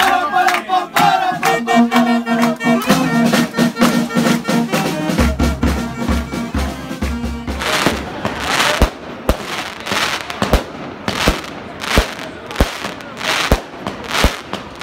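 A brass band plays held notes for roughly the first half. Then about halfway through, a string of firework bangs and crackling begins, about two bangs a second.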